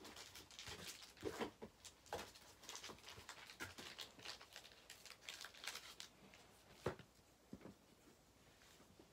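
Irregular rustling, crinkling and light clicks of plastic card sleeves and holders being handled, with one sharper click just before the end.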